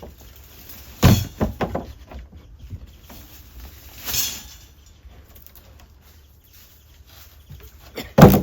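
Knocks and thuds of hard objects being handled: a quick cluster about a second in, a brief hiss near the middle, and a loud knock near the end.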